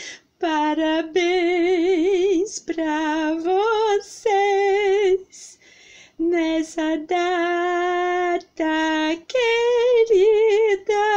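A woman singing unaccompanied, in phrases of long held notes with a wide vibrato, broken by short pauses.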